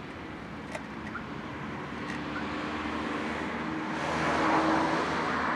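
A road vehicle passing, its noise swelling to a peak about four and a half seconds in and then easing off.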